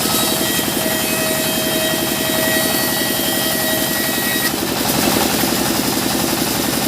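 Sawmill saw machinery running steadily, an engine with a fast pulsing beat, with a whining tone over it that stops about four and a half seconds in.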